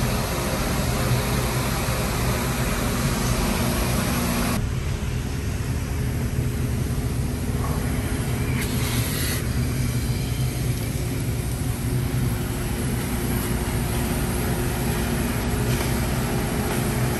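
Steady mechanical running with a low hum; a broad hiss over it cuts off sharply about four and a half seconds in, leaving the hum.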